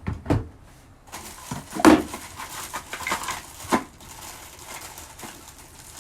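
Unboxing handling: packaging crinkling and rustling, with a few sharp knocks of plastic parts being set down, the loudest about two seconds in.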